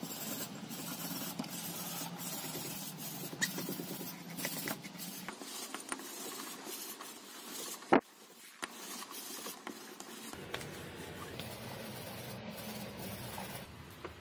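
Brass wire brush scrubbing a small metal part of an old angle grinder: a steady rasping scrape of bristles on metal, with one sharp click about eight seconds in.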